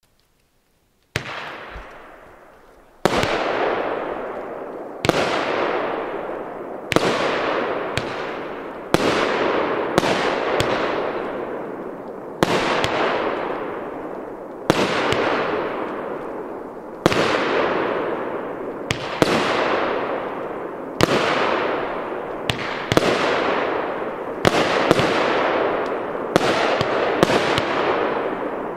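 Jorge Solar firework battery, a 25-shot cake of 30 mm gold-palm shells, firing in sequence. About a second in it starts giving a sharp bang every second or two, each trailing off in a fading hiss.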